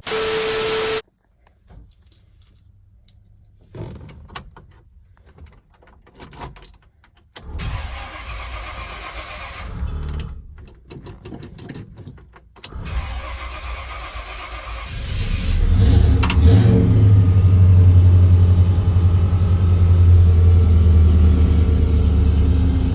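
Keys jangling and small clicks and rattles, then the 1967 Pontiac GTO's V8 starting about fifteen seconds in and settling into a loud, steady idle with a deep low hum.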